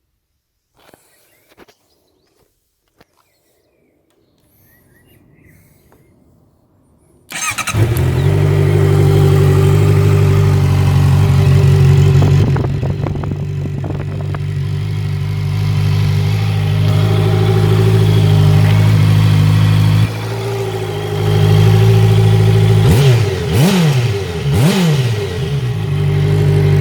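Honda CB650 inline-four motorcycle engine started after a few faint clicks, catching abruptly about seven seconds in and settling into a steady idle. Near the end the throttle is blipped twice, the pitch rising and falling each time.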